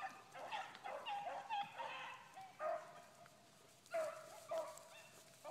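A pack of beagles baying in chase on a rabbit's trail, faint and overlapping. Quick yelps run together, ease off in the middle, then a longer drawn-out bay comes about four seconds in.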